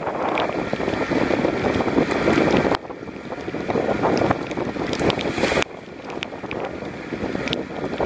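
Storm wind buffeting the microphone with rain and water splashing, and sharp ticks of drops striking the camera. The noise drops abruptly about three seconds in, comes back, and drops again near six seconds.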